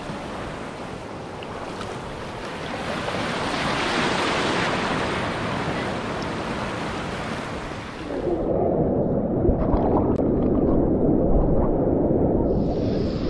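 Strong surf breaking and washing in, a steady rushing that swells about four seconds in. About eight seconds in the sound turns muffled and low, water churning around the camera as it goes into the waves.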